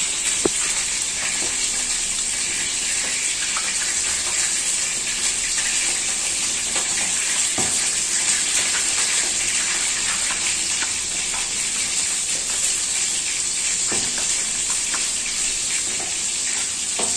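Plastic spatula stirring chopped chilli-and-shallot sambal into tamarind water in a bowl, with a few faint clicks against the bowl, over a steady hiss.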